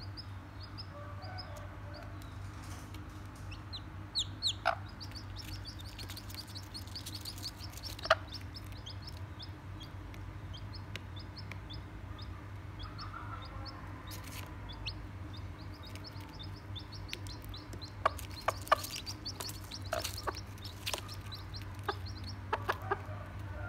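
Baby chicks peeping, a steady stream of short, high, down-sliding peeps, with a small broody hen clucking low now and then. Several sharp taps stand out, bunched about four-fifths of the way through.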